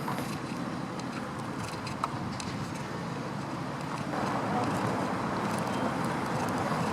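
Steady outdoor background rush of road traffic, growing louder about four seconds in, as a vehicle approaches, with scattered light clicks.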